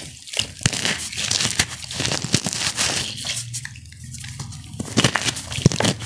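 Wet cornstarch coated in blue iron oxide being squeezed and crumbled in bare hands: an uneven run of soft crunches and crackles, with a few sharper cracks in the second half.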